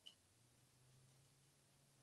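Near silence: room tone with a faint steady low hum and one faint short tick right at the start.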